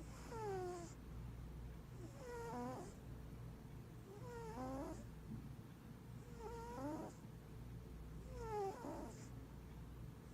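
Large Maine Coon mix cat snoring in its sleep. Five breaths come about two seconds apart, each with a soft hiss and a pitched tone that falls in pitch.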